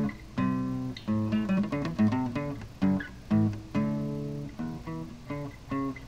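Acoustic guitar strumming chords with sharp attacks, an instrumental passage without singing.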